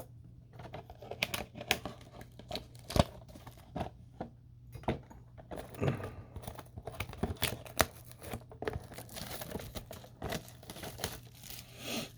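Wrapper of a football trading-card pack being torn open and handled, giving irregular crinkles, crackles and rustles over a faint steady low hum.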